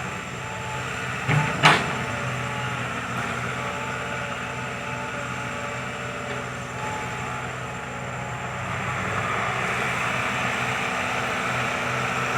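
Diesel engine of heavy earthmoving machinery running steadily, growing a little louder near the end, with two sharp knocks in quick succession about a second and a half in.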